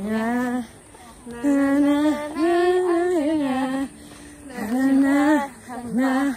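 Young women singing a Malay-language pop ballad together, holding long drawn-out notes phrase by phrase.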